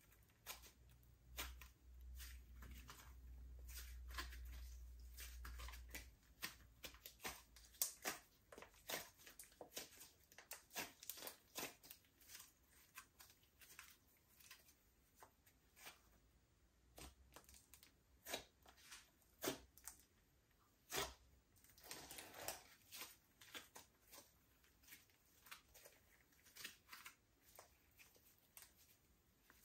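Slime being squeezed and stretched by hand, giving quiet, irregular sticky clicks and pops. A low rumble sits under it for the first few seconds.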